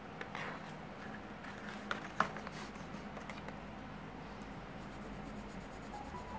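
Coloured pencil scribbling on paper in rapid back-and-forth strokes near the end, laying down a test swatch. Before that, a few soft scrapes and sharp taps of pencils being handled; the loudest tap comes about two seconds in.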